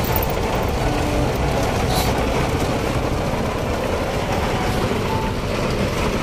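Steady road and engine rumble of a car driving in the rain, heard from inside the cabin.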